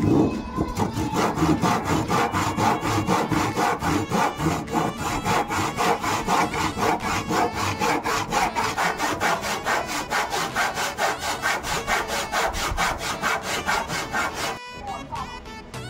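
Handsaw cutting through a wooden plank in quick, regular back-and-forth strokes; the saw is rather dull. The sawing stops suddenly about a second before the end.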